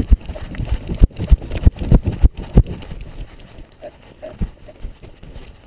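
Dog's collar camera jolting as the dog runs on sand: quick, irregular heavy thumps of its strides, thick for the first three seconds or so, then lighter and sparser.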